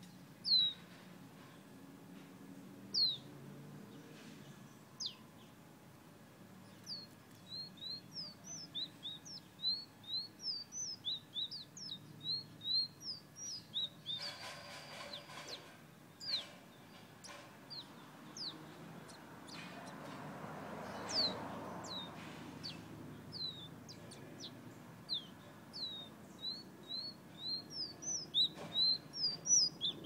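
Caged red songbird, kept in Guyana as a "fire red", whistling a long series of short, high, sharply falling notes, at times in quick runs of several a second. A brief rattling noise comes about halfway through, and a swell of background hum a little later.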